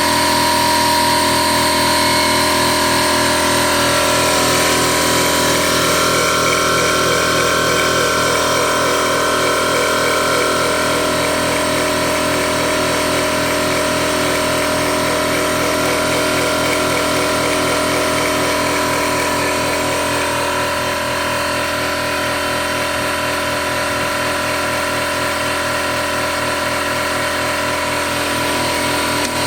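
Ridgid portable air compressor running steadily as it fills its tank, a loud, even motor-and-pump drone that eases slightly in level about two-thirds of the way through.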